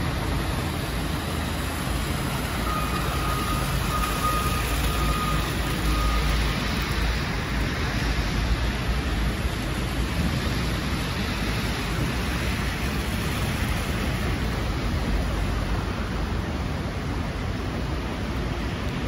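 Street traffic on a slushy road: a city transit bus and a minivan running at low speed, with a steady hiss of tyres on wet slush over a low engine rumble. A faint, broken high tone comes and goes from about three to six seconds in.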